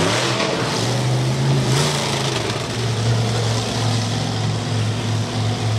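Monster truck engine running at fairly steady revs, rising briefly just after the start and again about two seconds in, as the truck drives over a row of crushed cars.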